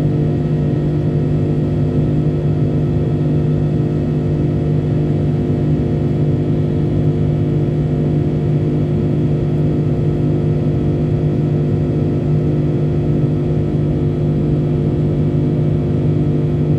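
Rolls-Royce Trent 700 turbofan engines of an Airbus A330-300 heard from inside the cabin: a loud, steady drone with several held low tones.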